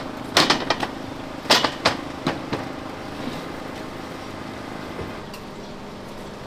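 A run of sharp clacks and knocks, bunched in the first two and a half seconds, over a steady hum.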